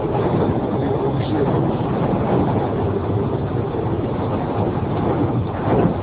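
Storm wind blowing hard over the microphone, a dense, fairly steady rushing rumble.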